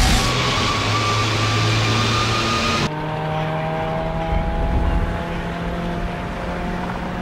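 Ford Fiesta rally car engine running at speed with a steady pitch. About three seconds in, a sudden cut makes it duller and more distant, and its pitch then rises slowly as the car accelerates.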